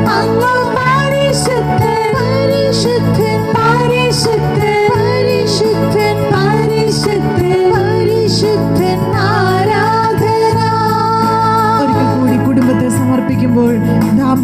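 Christian devotional song: a sung melody over steady sustained keyboard chords, with a light high percussion hit about every second and a half.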